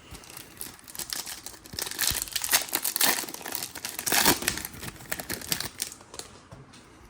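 Foil wrapper of a trading-card pack crinkling and tearing as it is opened and handled: a dense crackle that starts about a second in, is loudest around the middle and eases off near the end.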